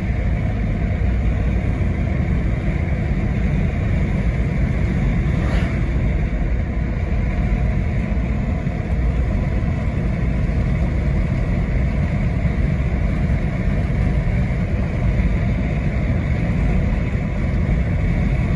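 Inside the cab of a 1999 Jeep Cherokee XJ cruising at about 40 mph: the 4.0-litre straight-six running steadily at around 2,000 rpm, with road noise. A faint tick about five and a half seconds in.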